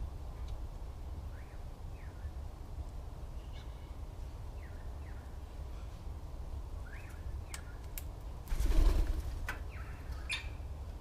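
Small birds giving short chirps that sweep upward, about a dozen scattered through, over a steady low rumble. About eight and a half seconds in, a loud rushing noise lasts under a second.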